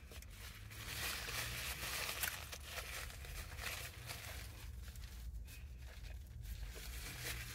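Paper napkin crinkling and rustling as it is folded and handled, loudest in the first half, then quieter as it is pressed to the face. A low steady hum runs underneath.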